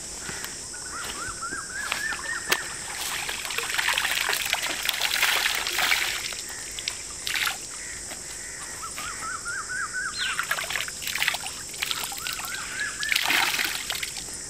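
Water splashing, sloshing and dribbling as a shirt is dunked, scrubbed and wrung out by hand in a shallow pool, in irregular bursts. A steady chorus of night insects runs underneath, and a short rapid chirping call comes three times.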